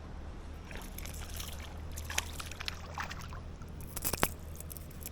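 Water splashing and sloshing in a run of short splashes, the loudest about four seconds in, from a hooked smallmouth bass being brought in at the surface.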